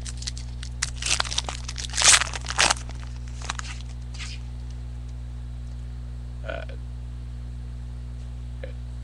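Trading cards being handled and flipped through: a quick run of clicks and papery crinkles in the first few seconds, then only a steady low hum.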